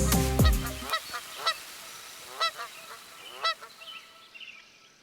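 Music cuts off about a second in, then a goose honks four times, short separate calls spaced roughly a second apart.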